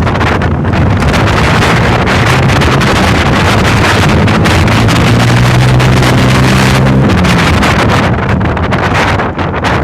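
Road traffic noise heavily buffeted by wind on the microphone, with a low steady engine hum standing out from about three to seven seconds in.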